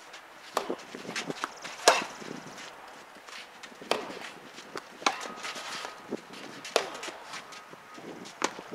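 Tennis rally: a tennis ball struck by rackets, a sharp pock about every one to two seconds, with smaller taps and footsteps between the hits.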